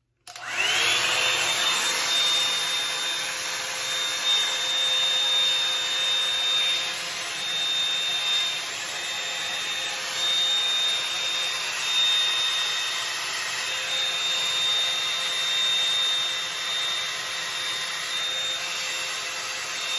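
Bed Head Blow Out Freak hot-air volume drying brush switched on, its motor spinning up with a rising whine over about a second, then running steadily: a loud rush of air with a steady high whine.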